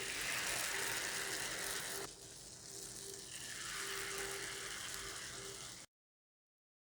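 Malpua batter sizzling as it fries in hot ghee. The sizzle dips about two seconds in, then picks up again, and cuts off abruptly near the end.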